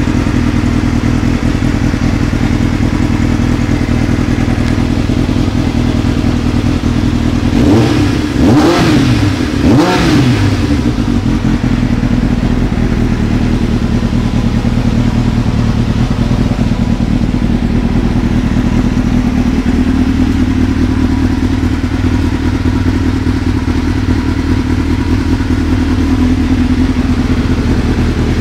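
Kawasaki ZX-7R's inline-four engine idling steadily, blipped twice with quick revs that rise and fall about a third of the way in, then settling back to a steady idle.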